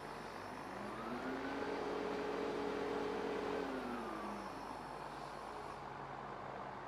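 Mobile crane's engine revving up, holding for about two seconds, then winding back down as the hook is lowered, over a steady outdoor rumble.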